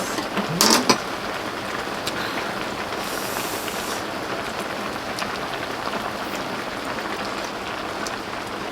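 Steady rain falling, with a brief sharp knock and a short voice sound about a second in.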